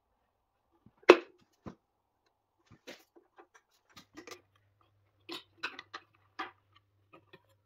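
Clicks, taps and light knocks of a small wrench and metal parts being handled as the air cleaner cover is worked loose and lifted off an old tractor engine. One sharp knock about a second in is the loudest.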